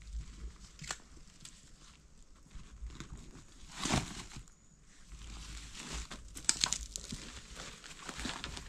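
Plastic sack crinkling as bamboo shoots are handled into it, loudest about four seconds in, then footsteps crunching through dry bamboo leaf litter and twigs.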